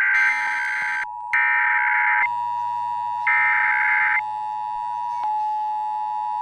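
Emergency Alert System broadcast signal: harsh, roughly one-second bursts of digital SAME header data, three in all, the first already under way and ending about a second in, over a steady alert tone. After the last burst, a little past halfway, the steady attention tone goes on alone, announcing the national test message.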